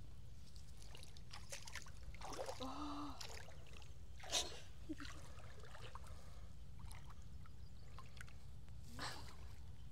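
Quiet outdoor background with a steady low rumble. A woman makes a brief murmured sound about two and a half seconds in, and there are short soft rustles near four and a half and nine seconds in as clothes are pulled off under sarongs.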